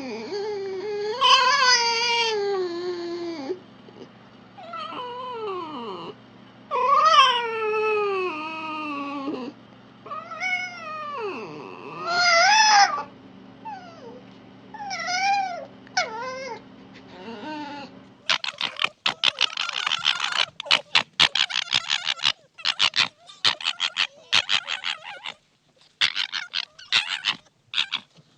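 Red fox calling: a series of drawn-out, whining calls, each sliding down in pitch, over a faint steady hum. About eighteen seconds in, these change to a different call, a fast stuttering chatter of short bursts.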